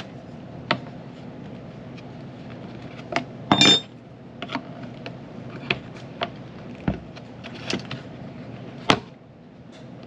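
Hand tools and loose parts clicking and tapping against the metal housing of a disassembled sump pump, with one ringing metallic clink about three and a half seconds in. A steady low hum runs underneath and stops about nine seconds in.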